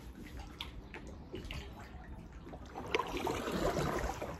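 Water trickling and dripping around a paddled canoe, with the splashes of paddle strokes growing louder about three seconds in.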